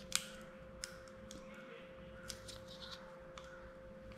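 Faint, scattered plastic clicks as the cap is worked off a Loctite marine epoxy syringe, over a faint steady hum.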